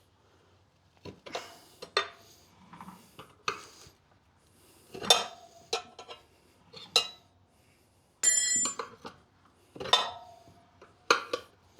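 Steel tire levers clinking and knocking against a motorcycle wheel rim as the tire bead is pried over it, about ten irregular metallic strikes with short ringing. A little after eight seconds one strike leaves a clear, high ring lasting about half a second.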